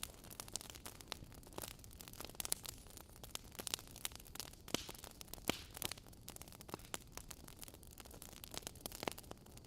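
Wood fire crackling in a fireplace: burning logs giving off many irregular sharp pops and snaps over a faint steady hiss.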